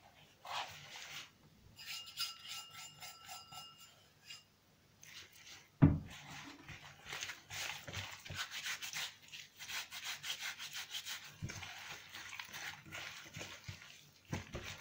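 Hands rubbing a dry spice-and-salt rub into a raw leg of lamb: repeated rubbing strokes of skin on wet meat, getting busier after a single thump about six seconds in.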